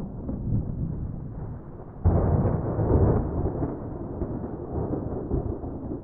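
Steady rain with thunder rumbling; about two seconds in a louder peal of thunder breaks in and rolls on, easing off near the end.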